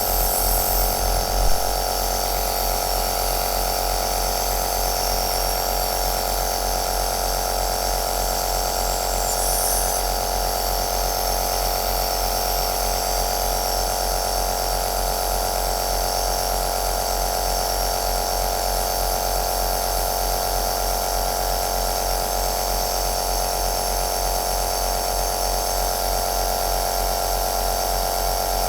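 Home compressor nebulizer running steadily: a constant motor hum and hiss. A low pulsing under it stops about a second and a half in.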